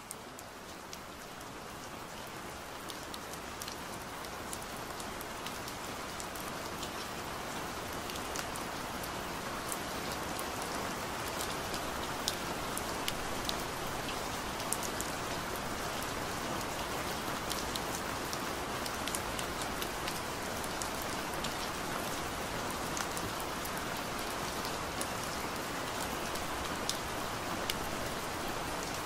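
Steady rain with many small drop ticks over an even hiss. It grows louder over the first ten seconds or so, then holds steady.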